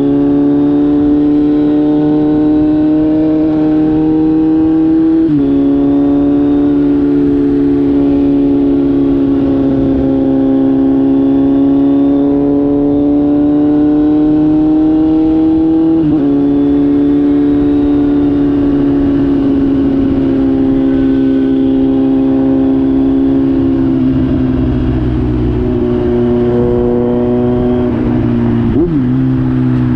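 Kawasaki Z900's inline-four engine through an SC-Project GP1 exhaust, running at steady revs. Its note shifts abruptly in pitch about five seconds in, again around sixteen seconds, and once more near the end, as at gear changes.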